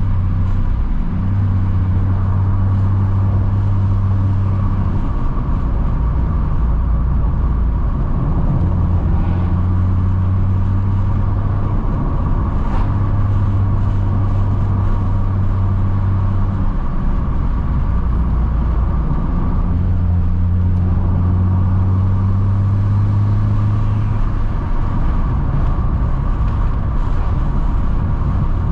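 Car driving at a steady speed: a continuous low engine drone over road noise, the drone growing stronger and easing off in stretches of a few seconds.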